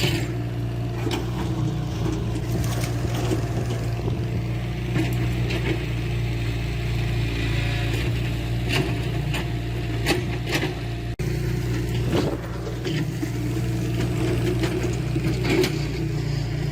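Diesel engine of heavy earthmoving machinery running steadily, with frequent short clanks and knocks of metal and stone over it.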